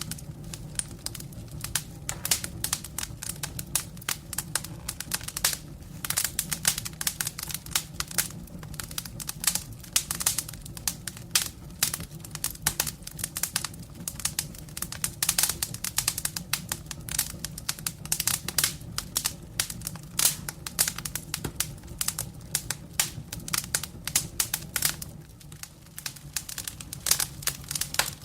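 Campfire crackling: a dense, irregular run of sharp pops and snaps from the burning wood over a low steady rumble of the flames, easing briefly for a moment about three quarters of the way through.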